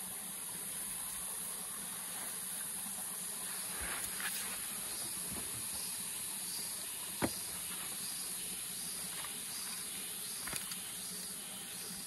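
Steady high-pitched insect chorus of rainforest insects, with a few short clicks or knocks, the sharpest about seven seconds in.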